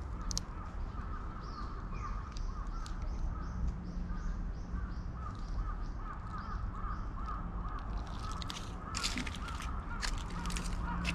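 Wild birds calling outdoors, a steady run of short repeated calls with a higher chirping series through the first half. A few brief crackling rustles come near the end.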